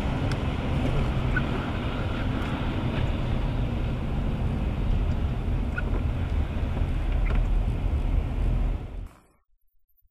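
Steady rumble and hiss of a car driving on a wet, rain-covered road, heard from inside the cabin, with a few faint ticks. It cuts off suddenly about nine seconds in.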